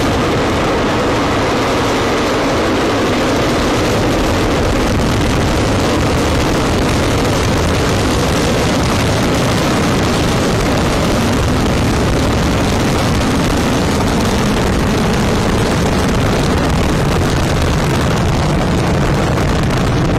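Long March 2D rocket lifting off and climbing, its four-chamber YF-21C first-stage engine giving a loud, steady, dense rumble that grows deeper in the second half.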